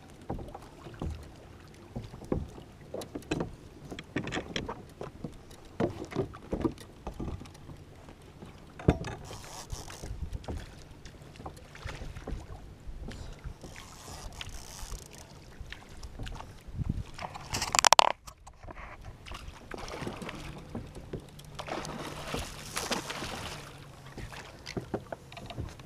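Water lapping and sloshing against a kayak's hull, with scattered knocks and taps of gear on the hull. About eighteen seconds in comes a loud rush of noise that cuts off suddenly.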